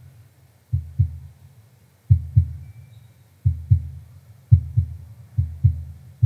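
Heartbeat sound effect: five low double thumps (lub-dub), each pair about a second and a half apart at first and coming closer together toward the end.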